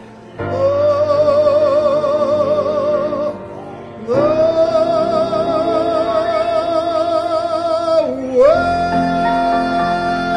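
Male singer holding the long closing notes of a ballad with wide vibrato, over accompaniment. There are three held notes: the second swoops up and is higher, and after a brief dip the third is held on.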